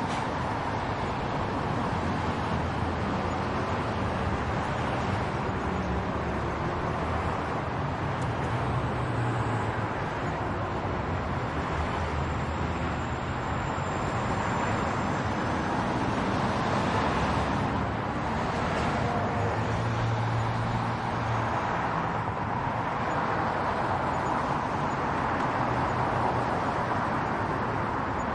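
Continuous road traffic: a steady wash of passing cars and engines. A deeper engine hum swells twice, about a third and about two thirds of the way through.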